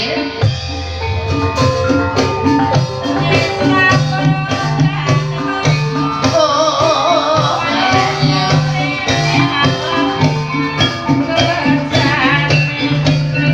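Live ebeg accompaniment music: a gamelan-style ensemble of struck metal-keyed instruments and drums playing a steady repeating pattern. A wavering high melody comes in about six seconds in.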